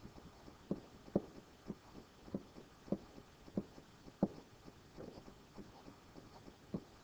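About ten light, irregular taps of a stylus pen touching down on a drawing surface, roughly one or two a second, one for each field line being drawn.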